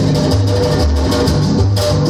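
Latin tropical dance music played loud over a street sound system, with a repeating bass line, guitar and shaker percussion.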